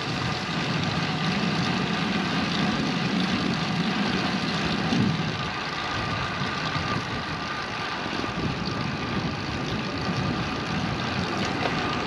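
Riding noise from a Lynskey Helix road bike rolling on concrete pavement: a steady rush of wind on the camera microphone with tyre hum. A low rumble is stronger for the first five seconds or so.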